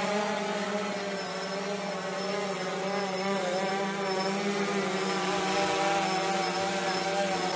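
DJI Phantom 3 quadcopter's motors and propellers whining steadily in flight, the pitch wavering slightly as the motors adjust their speed.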